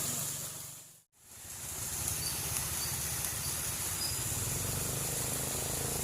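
Steady outdoor background noise: a high, even hiss over a low hum, fading out briefly to silence about a second in and then returning.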